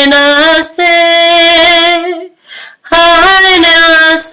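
A woman's voice chanting wordless syllables in a meditation chant, holding long steady notes. The chant breaks off briefly under a second in, then pauses about two seconds in with a faint breath before the next phrase begins.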